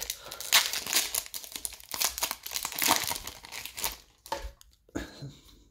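Foil wrapper of a baseball card pack being torn open and crinkled, crackling for about four seconds before the handling dies down to a couple of brief soft sounds.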